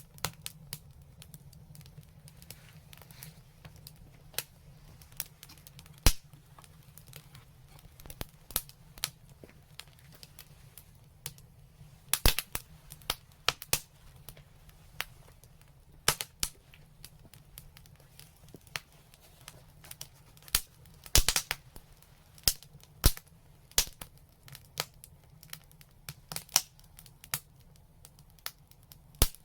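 Fire in a fireplace crackling: irregular sharp pops and snaps, with a single loud pop about six seconds in and quick clusters of snaps around twelve and twenty-one seconds in.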